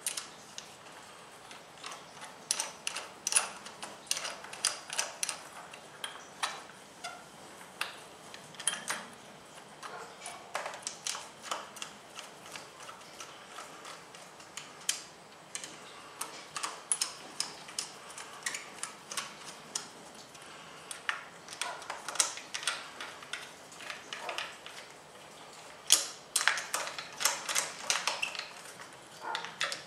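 Screwdriver driving the small screws of a power-tip end cap into a Two Brothers M2 exhaust muffler: irregular clusters of small metallic clicks and ticks, the loudest about 26 seconds in.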